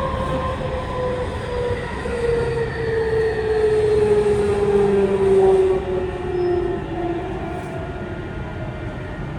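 Tokyu 5000 series train running, heard from inside a motor car. The whine of its TKM-98 traction motors and Hitachi IGBT-VVVF inverter falls steadily in pitch as the train slows. About six seconds in the sound drops in level and a high hiss stops, leaving the motor whine over the wheel and rail rumble.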